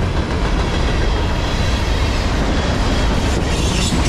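Freight cars of a long freight train rolling past close by: a steady, loud rumble of steel wheels on the rails, with a hissier edge coming in near the end.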